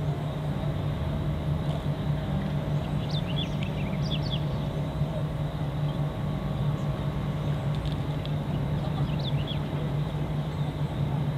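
Steady low motor hum, unchanging throughout, with faint high bird chirps about three seconds in and again near nine seconds.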